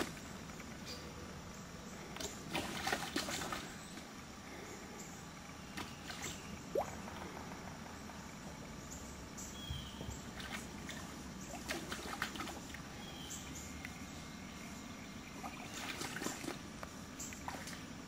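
Red-shouldered hawk splashing in shallow pond water in several short bouts as it wades and grabs at fish.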